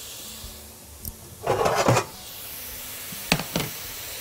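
Finely chopped onion in ghee sizzling in a pot as it is sautéed and stirred, with a loud scrape of the spoon about one and a half seconds in. Two sharp knocks follow a little after three seconds.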